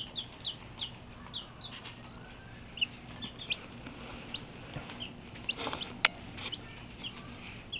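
Baby chicks peeping: a run of short, high cheeps a few tenths of a second apart, with a sharp click about six seconds in.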